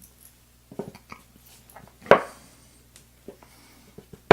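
Small metallic clicks and taps as the key pins are worked out of a Medeco Original lock plug, with a sharper knock about two seconds in and another at the end.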